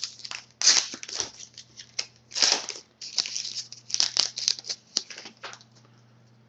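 Crinkling and tearing of a trading-card pack wrapper as it is handled and opened, in a quick run of sharp rustles that stops about five and a half seconds in.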